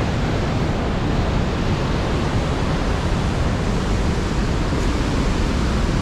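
Vernal Fall, a large waterfall at springtime peak flow, giving a loud, steady rush of falling water.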